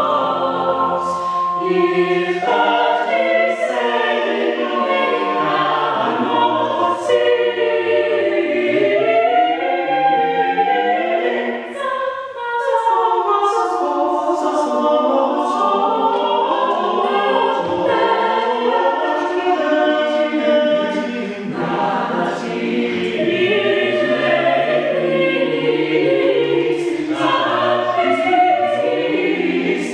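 Eight-voice mixed chamber choir singing a Christmas carol a cappella in several parts, with a brief lull about twelve seconds in.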